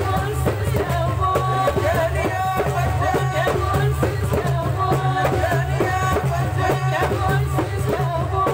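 Live Algerian Saharan folk music: a voice singing a wavering melody over steady, dense percussion.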